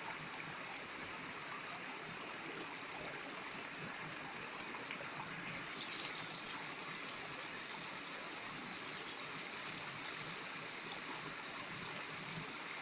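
Shallow creek running over rock slabs: a steady, even rush of flowing water.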